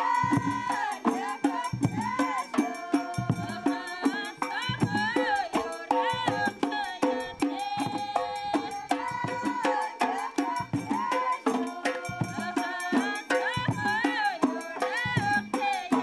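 Background music: a wavering melody over a regular percussion beat.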